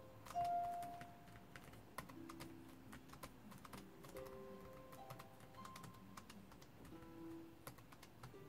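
Faint typing on a laptop keyboard, irregular key clicks throughout, over soft background music of held notes.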